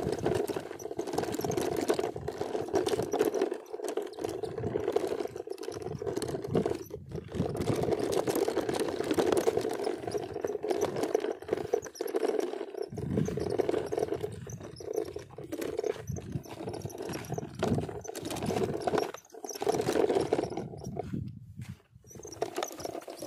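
A person's voice making a continuous growling engine noise for a toy dump truck, broken by short pauses for breath, over small scrapes and clicks of a plastic toy truck pushed through dirt.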